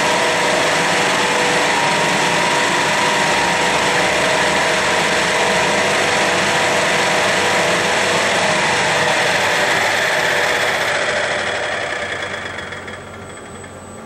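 Kurabo Mazerustar KK250 planetary mixer running its mixing cycle, a steady whirring hum with a few steady tones as the container revolves and spins. It dies away near the end.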